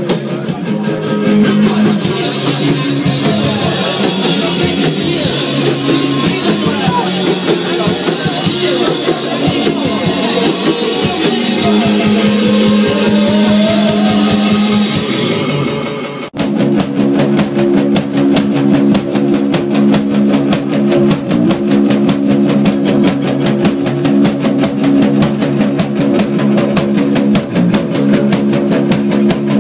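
A live rock band playing loud: electric guitar and drum kit. The music breaks off abruptly about sixteen seconds in and picks straight up again on a fast, even drum beat.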